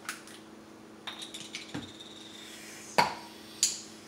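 Glass olive oil bottle being handled and its cap twisted open: a few light clicks and clinks, with a sharp click about three seconds in and another just after.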